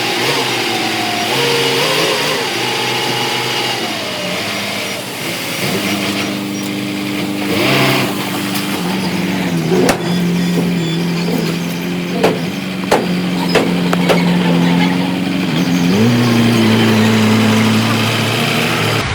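Diesel engine of a heavy earth-moving machine running under load, its pitch rising and falling several times as it revs up and eases off, with a few sharp metallic clanks in the middle.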